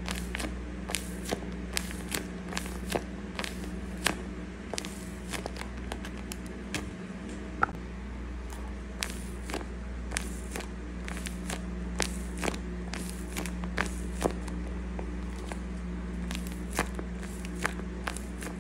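A paper squishy wrapped in clear tape, squeezed and pressed in the hands: irregular sharp crackles and crinkles of the tape and paper, several a second, over a steady low hum.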